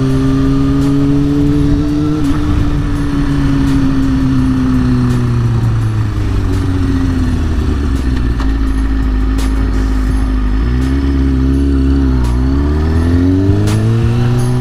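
Kawasaki Ninja 636 sportbike's inline-four engine under way: the revs fall as the bike rolls off and slows to a low, near-idle note about halfway through, then rise again as it pulls away, with a brief dip for a gear change before climbing once more.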